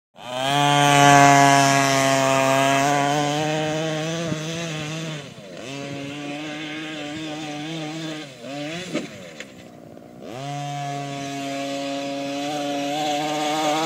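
RC truck's motor running at high revs as it drives, with a steady buzzing pitch. It eases off about five seconds in and again for a couple of seconds later on, revs briefly in between, then comes back up to speed.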